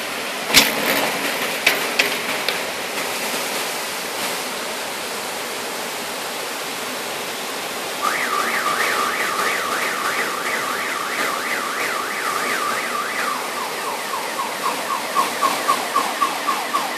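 Heavy rain with a steady hiss, with a few sharp clicks near the start. About eight seconds in, a car alarm starts, cycling a fast rising-and-falling siren tone about three times a second, then switching to a lower, quicker falling tone about five seconds later.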